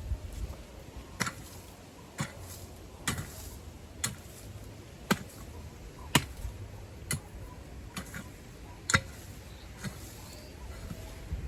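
Sharp knocks, evenly spaced about once a second.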